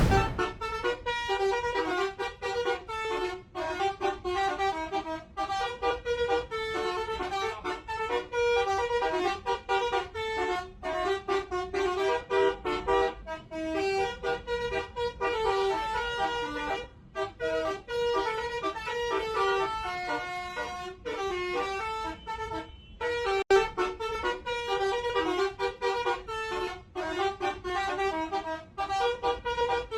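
A bus's 'telolet' multi-tone horn playing a quick melody of shifting notes, over and over, with a few brief pauses.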